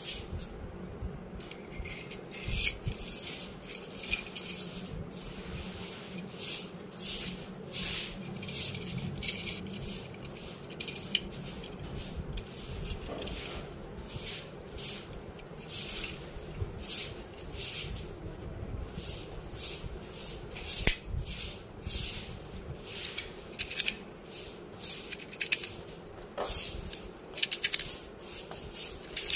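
Metal parts of a 7-shot 30 bore pistol magazine being handled and fitted together: many short, irregular clicks, taps and scrapes of the body, spring and base plate, over a low steady hum.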